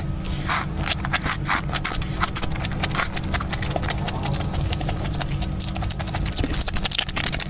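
Close-miked chewing of crunchy beef tripe with bean sprouts: a dense, irregular run of small crunches and wet clicks over a steady low hum.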